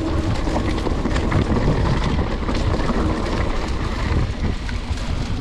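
Heavy wind buffeting the microphone: a loud, steady rumbling rush with scattered clicks and rattles.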